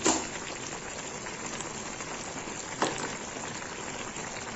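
Chopped bottle gourd simmering in a kadai of oil and the water the gourd has released, a steady crackling hiss like rain. Two short knocks, one at the start and one a little before three seconds in.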